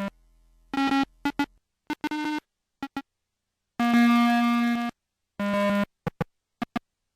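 A buzzy electronic tone with many overtones, chopped into stuttering fragments: a few short blips, then pieces lasting up to about a second, each cut off abruptly into silence.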